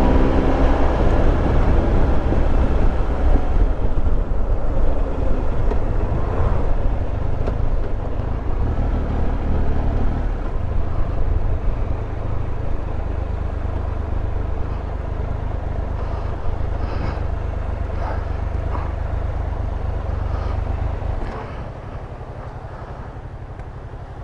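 Triumph Tiger Explorer 1200 on the move: wind on the microphone and road rush over the three-cylinder engine, which revs up briefly at the start. The rush eases as the bike slows, then falls away about three seconds before the end as it comes to a stop.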